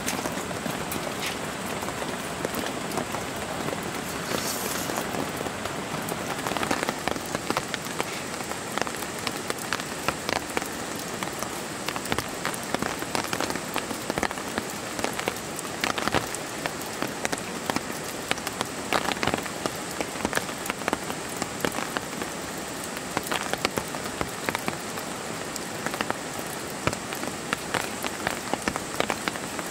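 Steady rain falling on the tent, with many separate heavier drops tapping sharply at irregular moments.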